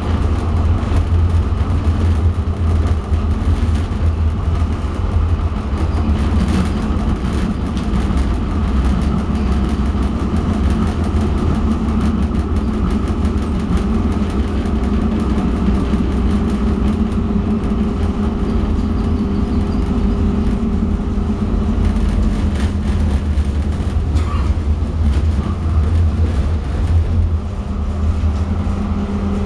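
Interior running noise of TEC tram 7416 on street track: a steady low rumble of wheels and motors. A faint steady hum comes in about halfway through and fades out again after several seconds.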